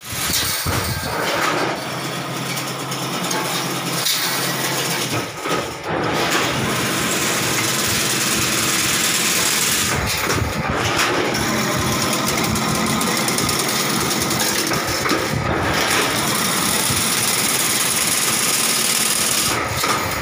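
Automatic chain link fence weaving machine running: a steady, dense mechanical noise with rapid fine ticking as the wire is fed in and woven, dipping briefly about five seconds in.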